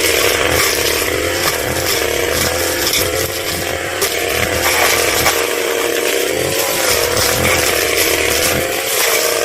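Two-stroke brush cutter engine running at high revs, its pitch wavering slightly as the cutter works under load through grass and scattered palm fronds.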